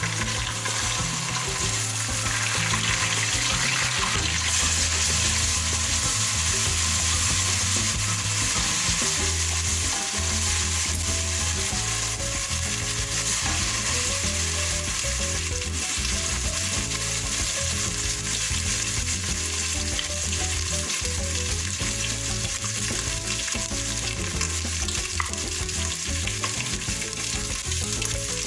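Food sizzling as it fries in hot oil in a cooking pot, a steady hiss throughout, with soft background music underneath.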